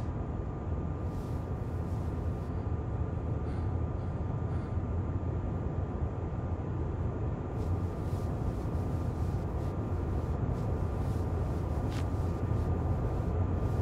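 A steady low rumbling drone with a faint thin high tone held over it, and a few faint soft clicks.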